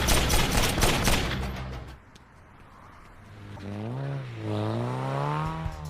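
Rapid gunfire over a low, steady music bed for about two seconds, cutting off suddenly. After a short lull, a single wavering pitched tone swells up and bends up and down.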